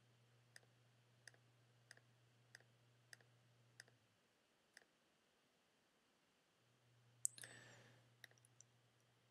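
Faint computer mouse-button clicks, about one every 0.6 s for the first four seconds, then a few scattered ones. About seven seconds in comes one sharper click followed by a short hiss. A faint low hum sits underneath.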